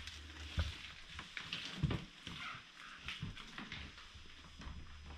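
Faint footsteps and soft irregular knocks on old wooden floorboards as someone walks into a room, over a low steady hum.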